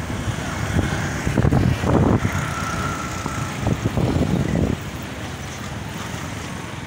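Busy city road traffic heard from a moving motorcycle: motorcycle and car engines running and passing close by, rumbling with uneven surges, then quieter about five seconds in.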